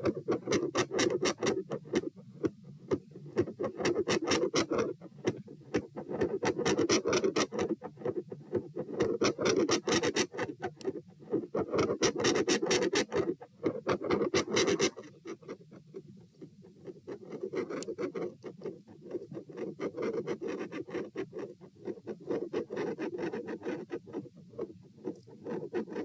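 Heart sounds recorded on the chest of a standing person: a rapid run of beats that swells and fades in loudness every few seconds, then drops sharply in volume about fifteen seconds in. The uploader asks whether these phasic pressure changes point to a PFO shunt.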